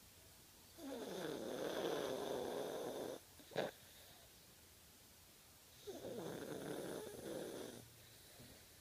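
An old fox terrier snoring in its sleep: two long, rasping snores about five seconds apart, with a brief sharp click just after the first.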